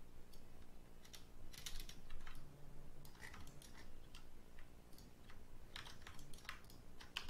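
Computer keyboard and mouse clicks, a few scattered keystrokes in small groups every second or two, over a faint low hum.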